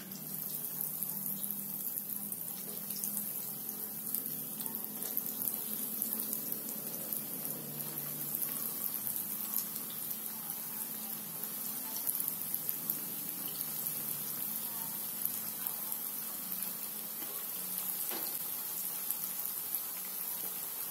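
Breaded tofu pieces deep-frying in hot oil in a wok: a steady sizzle with small crackles, which starts sharply as the first piece goes into the oil.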